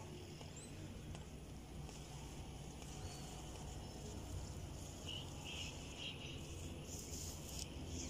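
Rural outdoor background: a steady low rumble, a few faint chirps about five to six seconds in, and a soft rustling near the end.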